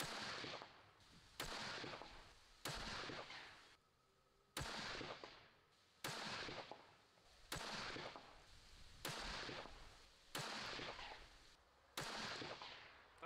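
A string of about nine rifle shots from a custom precision rifle, fired roughly every second and a half. Each shot has a sharp crack followed by an echo that trails off.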